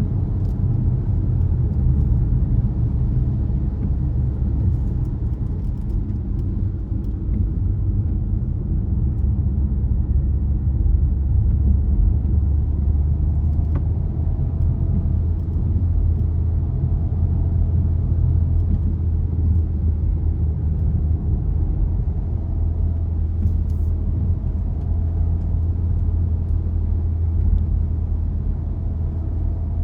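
A car being driven, with a steady low rumble of engine and road noise and a couple of faint ticks.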